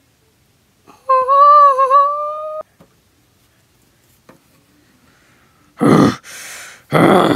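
A child's voice holds a high, slightly wavering hum for about a second and a half. Near the end come three loud, harsh, buzzing vocal bursts, a mouth-made imitation of a chainsaw for a Leatherface plush.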